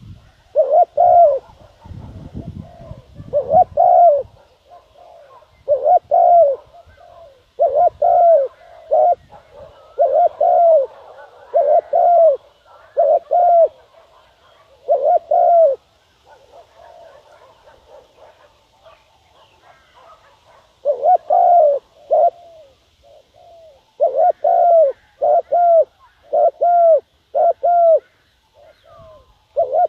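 Spotted dove cooing: short, arching coo notes repeated in runs, a decoy bird's territorial call used to draw in wild doves. The runs pause for several seconds in the middle. A brief low rumble comes a couple of seconds in.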